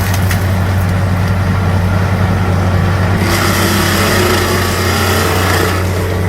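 A 200-horsepower stump-mulching machine running steadily under load, its engine a constant low drone; about three seconds in a harsher, hissing grinding noise joins it.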